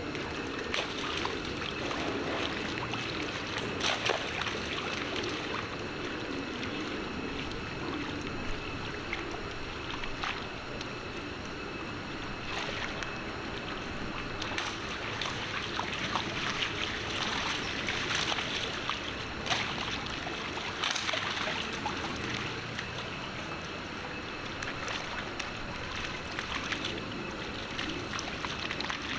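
Shallow rainwater puddle splashing and sloshing as long-tailed macaques wade and run through it: scattered small splashes over a steady noise.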